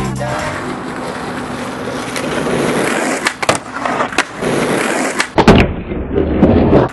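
Skateboard wheels rolling on asphalt, then several sharp clacks as the board is popped and hits a wooden box ledge, the loudest knock about five and a half seconds in. A rough scraping follows as the board slides along the wooden ledge.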